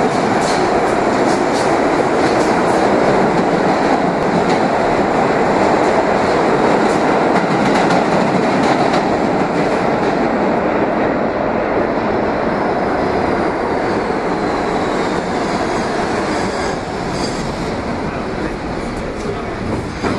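New York City subway trains running through an underground station: a continuous loud rumble and rattle of steel wheels on rail that eases off slowly after about ten seconds, with a faint falling whine partway through. Near the end a train is pulling in alongside the platform.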